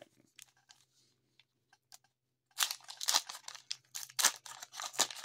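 A 1990 Topps baseball card wax pack handled with a few faint ticks, then torn open about two and a half seconds in: a run of crinkling and ripping from the waxed paper wrapper.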